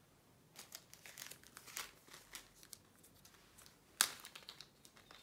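Small plastic zip-lock bag of diamond-painting drills crinkling as it is handled and opened, with a single sharp snap about four seconds in.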